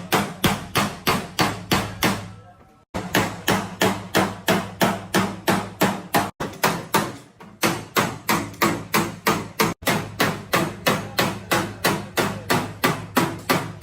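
Hammer beating dented car body sheet metal in rapid, even strikes, about three to four a second, with a few abrupt short breaks, during panel-beating repair of an accident-damaged Honda City's body.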